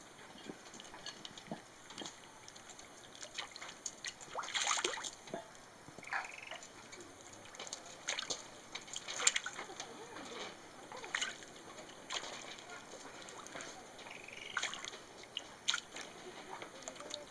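Red-crowned crane shaking and dipping a fish in shallow water with its bill, tearing it apart to make it easier to eat: irregular splashes and sloshes, the loudest run about five seconds in.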